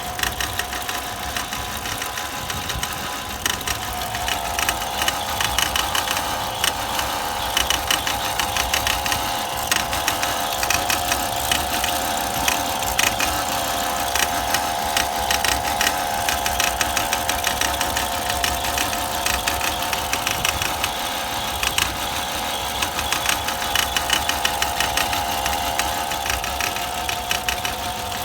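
2002 Volvo XC70's five-cylinder engine running rough and misfiring at idle, with an uneven clatter of knocks; a steadier higher hum joins about four seconds in. The engine is said to have dropped a piston right after a timing belt job.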